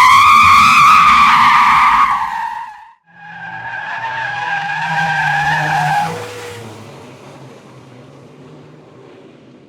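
Car tyres screeching under hard braking, twice: a loud squeal that cuts off about three seconds in, then a second, lower squeal over a low engine rumble that dies away about six seconds in, leaving the rumble fading.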